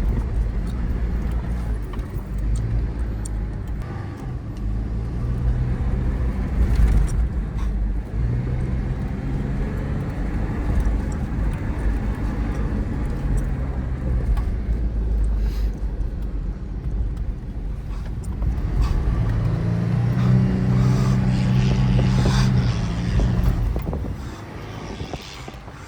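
Stock Toyota 4Runner's 4.0-litre V6 working through soft sand, its note rising and falling with the throttle over a heavy low rumble. The revs climb and hold high about three quarters of the way through, then fall away near the end.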